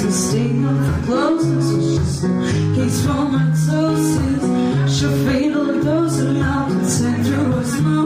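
A woman singing while playing an acoustic guitar, performed live through a small PA speaker.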